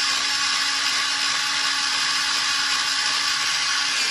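X-Acto electric pencil sharpener's motor running steadily with a pencil held in its port: an even motor whine over the hiss of the blades grinding the pencil, a really irritating sound.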